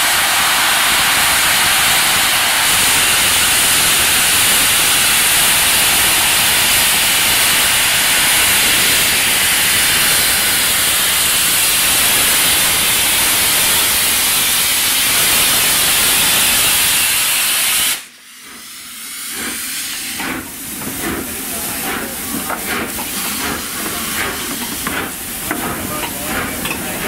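Steam hissing loudly and steadily from the open cylinder drain cocks of the LMS Royal Scot class 4-6-0 steam locomotive 46100 as it rolls slowly in. The hiss cuts off suddenly about two-thirds of the way through, leaving quieter irregular clicks and knocks.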